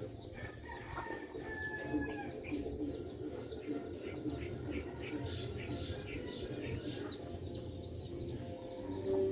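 Chickens clucking, with a quick series of high chirps about three a second.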